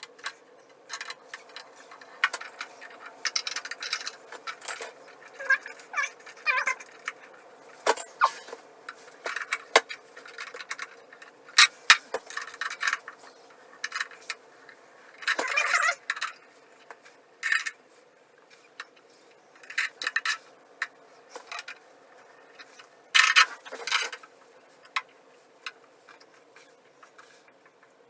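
Irregular clinks, taps and scrapes of small hard parts and tools being handled while fitting a toilet onto a toilet riser, with brief clusters of clatter every few seconds over a faint steady hum.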